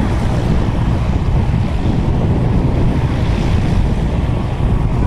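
Wind buffeting the camcorder's microphone: a steady, loud low rumble with no engine tone in it.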